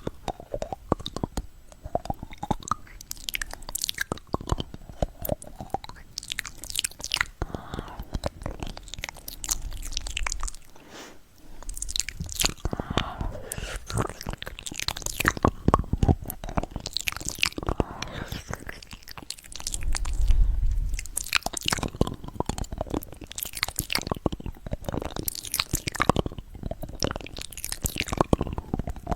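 Close-miked ASMR eating of fruit: crisp bites and wet, crunchy chewing, with irregular crackles throughout and a short lull near the middle.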